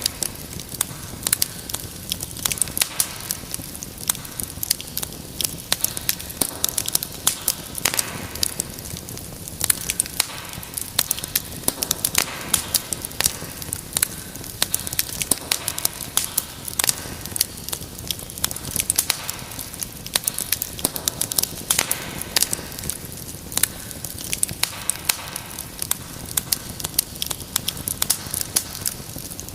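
Wood fire crackling in a fireplace: a dense, irregular stream of sharp pops and snaps over a steady hiss of burning.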